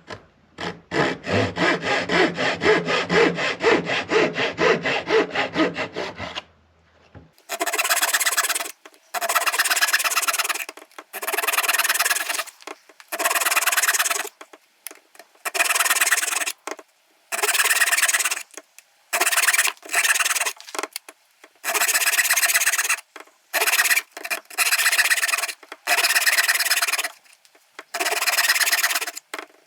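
Hand tool cutting wood with rapid back-and-forth strokes, most likely a fine saw: a continuous run of strokes for about six seconds, then, after a short pause, short bursts of strokes about every two seconds.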